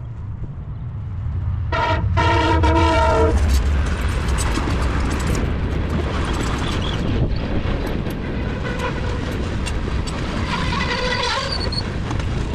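Freight train locomotive air horn sounding a short blast and then a longer one about two seconds in, over the heavy rumble of the passing train. Near the end a second, higher pitched tone sounds briefly.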